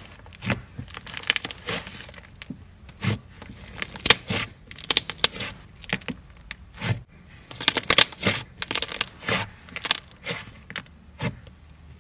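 Hands kneading and pressing a large lump of soft slime, trapped air popping and crackling in many short, sharp clicks at an irregular pace, some coming in quick clusters.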